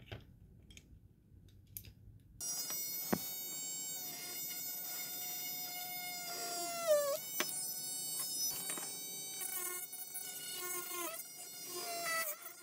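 A few light clicks of handling, then a small cordless rotary tool's motor switched on about two seconds in, running with a steady high whine. Its pitch sags for a moment about seven seconds in, and again near the end, as the bit bears on the plastic engine part.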